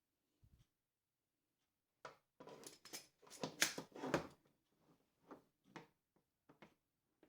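Faint clicks and knocks of plastic tool parts being handled, a router attachment being fitted to a corded spin saw's motor, bunched together from about two seconds in, with a few single clicks near the end.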